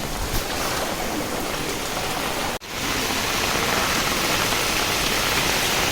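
Heavy rain falling steadily, a dense even hiss. It cuts out for an instant about two and a half seconds in, then continues slightly louder.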